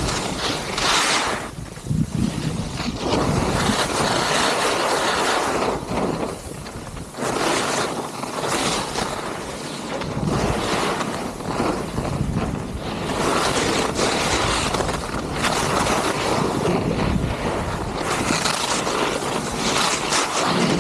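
Wind rushing over the microphone while skiing downhill, with the hiss and scrape of skis sliding on snow, swelling and easing every few seconds as the turns go.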